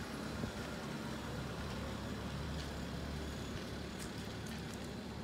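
A motor vehicle's engine running steadily nearby, a low even rumble.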